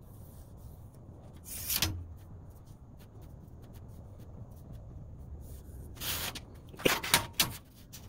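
A steel square sliding and scraping across a bare steel plate: one short scrape about two seconds in, then another scrape and a quick run of sharp knocks and scrapes near the end as it is shifted and set down.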